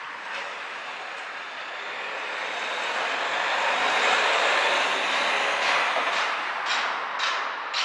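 A large vehicle passing along the street: its rushing noise rises to a peak about four seconds in and fades away. Near the end, footsteps on the pavement come through at a walking pace of about two steps a second.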